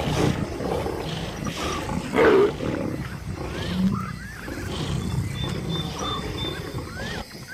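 A lion pride growling over a kill, with a louder snarling outburst about two seconds in. Faint short chirping calls repeat in the background.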